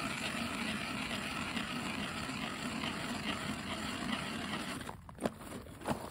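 Hand ice auger drilling into lake ice: the blades make a steady scraping grind that stops about five seconds in. Two sharp knocks follow.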